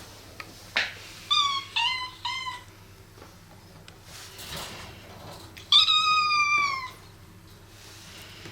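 Domestic cat meowing: three short meows in quick succession, then one longer meow that falls slightly in pitch about six seconds in.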